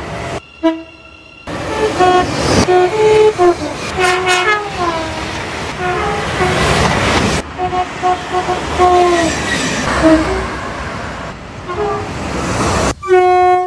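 Train horn sounding a rapid run of short toots at a few different pitches, then a longer blast near the end, over the noise of a moving train.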